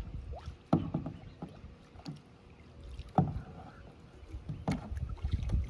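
A small boat being paddled up to a dock: three sharp paddle splashes or knocks, spaced a second or two apart, over a low rumble of water and wind on the microphone.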